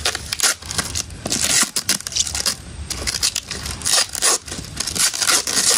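Packing tape and plastic wrapping being peeled and torn off a small gift box: a run of irregular crinkling, ripping and scraping noises.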